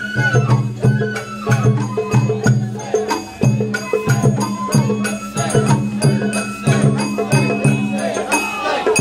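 Sawara bayashi festival music played live on a hauled float: taiko drums beating a steady, quick rhythm with sharp percussive strikes, under a high bamboo flute line.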